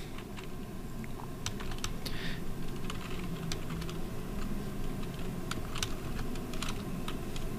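Computer keyboard typing: sparse, irregular keystrokes with short pauses between them, over a faint steady hum.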